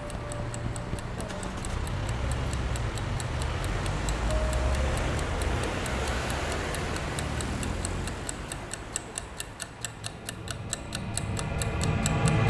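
A clock ticking fast and steadily over a low rumble. Near the end a louder swell with a held low tone builds.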